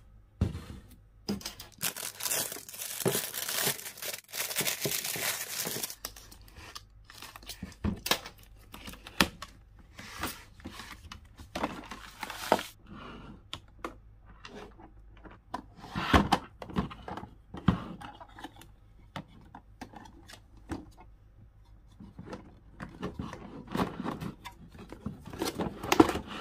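Packaging being torn off and crinkled, a dense stretch in the first few seconds. This is followed by scattered clicks and knocks of the toy case's hard plastic latches being unclipped and its lid and trays opened.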